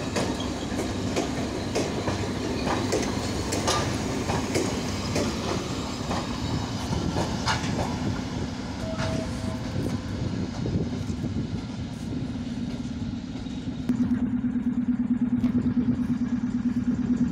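A passenger train rolls past with its wheels clacking over the rail joints at irregular intervals over a steady low hum. About fourteen seconds in, a louder steady hum with a fast pulse takes over.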